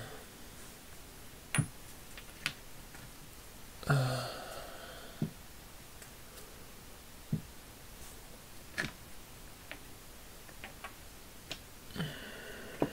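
Steel deep impact sockets taken out of their plastic case and handled, giving scattered single clicks and knocks a second or two apart, with a brief scrape about four seconds in and again near the end.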